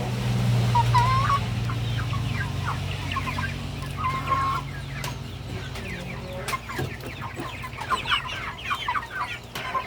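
A flock of 45-day-old broiler chickens clucking, with many short calls scattered throughout and growing busier toward the end. Under them a steady low hum, loudest in the first few seconds, fades away after about five seconds.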